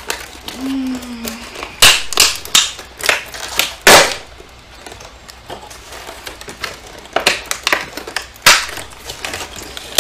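Hands struggling with stubborn packaging that won't come open: irregular sharp clicks, cracks and crinkles, the loudest snaps about two and four seconds in.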